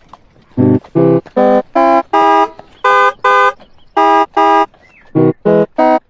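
Animated donkey's lip pops, distorted and pitch-shifted into a very loud run of about a dozen short tuned notes, each clipped flat. They climb in pitch step by step, then start climbing again near the end.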